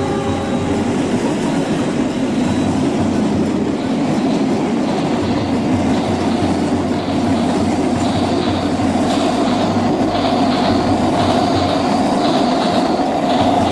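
Battery-powered toy express train running on plastic track: a steady motor whir with the wheels clicking over the track joints, getting a little louder in the second half as it draws near.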